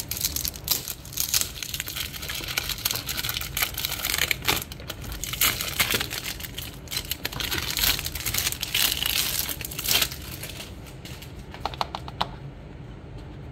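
Clear cellophane shrink wrap crinkling and crackling as it is peeled off a cardboard perfume box by hand. The crackle is dense at first, thins out about ten seconds in after a few last crinkles, and goes quiet near the end.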